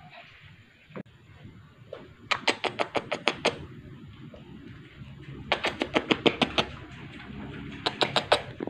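Rapid kisses, a person's lips smacking against a cat's head in three quick runs of clicks, the last run shorter.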